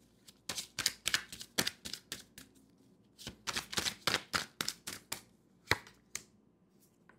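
A deck of tarot cards being shuffled hand to hand, overhand. It makes quick runs of papery flicks and taps in several bursts, then a few single taps near the end.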